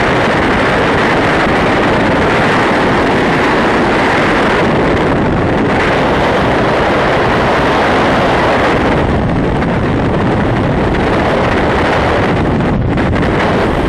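Freefall airflow buffeting the microphone of a skydiving camera: a loud, steady rush of wind noise that never lets up.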